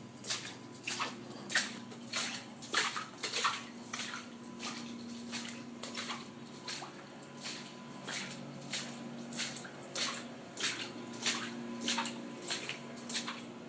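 Water splashing and sloshing in short irregular strokes, roughly one to two a second, over a steady low machine hum.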